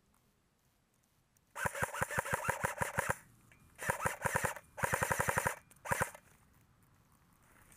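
Cyma AK-74U airsoft electric gun firing on full auto, its gearbox whirring under the rapid shots. There are four bursts: a long one of about a second and a half, two shorter ones, and a brief last one.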